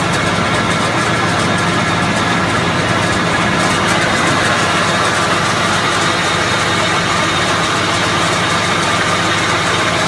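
Diesel engine of a truck-mounted tub grinder idling steadily, an even, unchanging drone.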